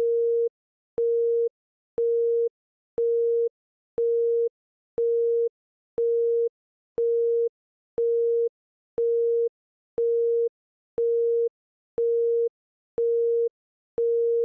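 Electronic beep tone repeating steadily, half a second on and half a second off, about fifteen beeps at one mid pitch, each with a faint click as it starts and stops.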